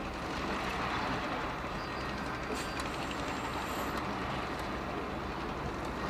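Heavy diesel earthmoving machinery running steadily, a constant engine sound with no change in load.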